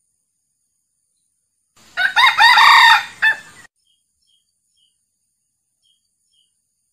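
A male red junglefowl crowing once, a single crow of about two seconds that starts about two seconds in.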